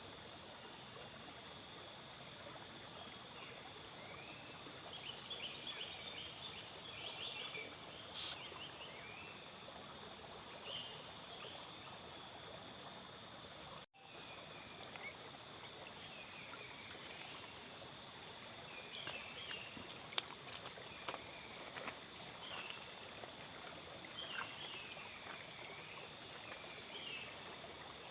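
A steady, high-pitched insect trill, with another insect chirping in a regular pulse and short bird chirps scattered over it. Everything cuts out for an instant about halfway through.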